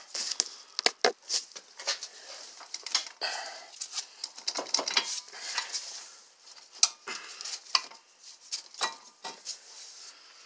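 Irregular light metallic clinks, knocks and rattles, with some scraping between them, as the front CV axle is worked by hand to pull it out of the steering knuckle.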